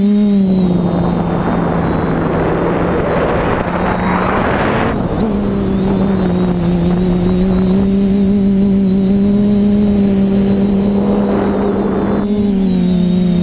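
TBS Discovery clone quadcopter's electric motors and propellers droning at a steady pitch with a thin high whine, heard from the camera mounted on it. A rushing noise swells over it for the first five seconds and again briefly near the end.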